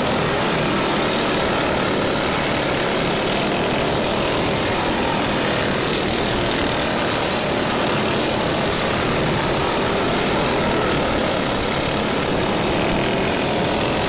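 The small engines of several racing lawn mowers running hard together as the pack laps the track, a steady engine drone with no breaks.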